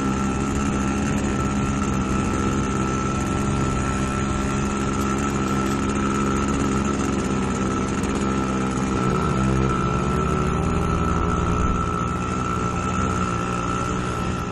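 Small two-stroke motorcycle engine running steadily while riding, its pitch shifting briefly about nine seconds in as the revs change.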